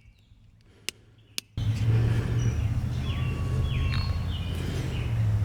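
Two small metallic clicks from tool work, then a sudden change to outdoor background: birds chirping over a steady low hum.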